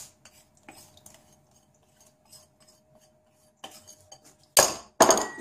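Faint clinks of a wire whisk and a pouring bowl against a stainless steel mixing bowl as liquid cream goes in, then two loud, short metallic rattles of the whisk in the bowl near the end.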